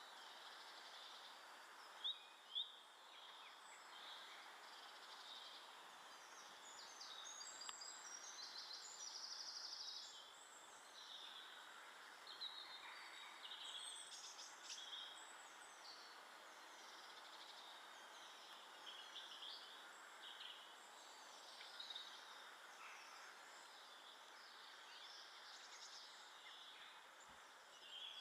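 Faint garden birdsong: many short chirps and calls from small birds, scattered throughout over a steady outdoor hiss. Two sharp, loud ticks come about two seconds in.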